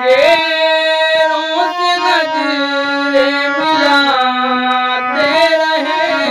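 Harmonium playing a melody over held reed notes, with a man's voice singing along in long, sliding notes without clear words.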